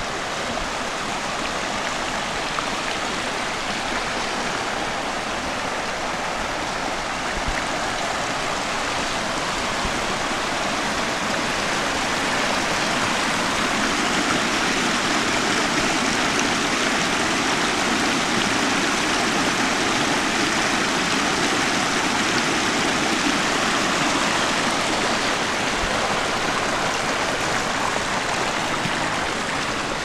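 Fast-flowing woodland stream rushing over rocks and small cascades, a steady rush of water that grows a little louder about twelve seconds in.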